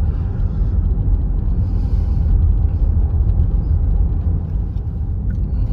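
Steady low rumble, with most of its energy deep in the bass.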